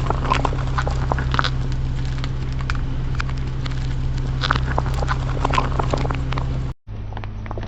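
A car engine running with a steady low hum, while irregular crackling and crunching comes from objects crushed under its tyres. Near the end the sound cuts out for an instant and then picks up again.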